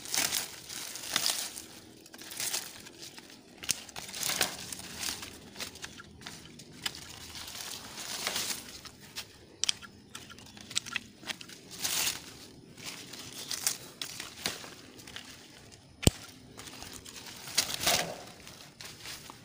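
Grapevine leaves and shoots rustling and crinkling in irregular bursts as they are handled during pruning, with one sharp click about sixteen seconds in.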